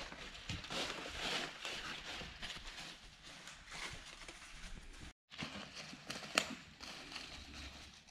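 Footsteps crunching and rustling through dry fallen leaves, irregular, with a sharp click a little past six seconds in. The sound cuts out completely for a moment about five seconds in.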